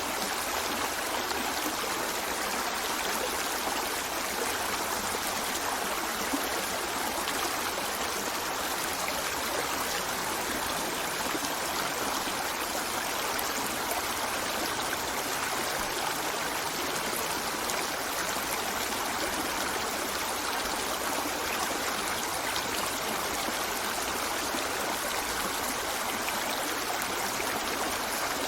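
A river flowing over rocks: a steady rush of water with a little trickling and gurgling.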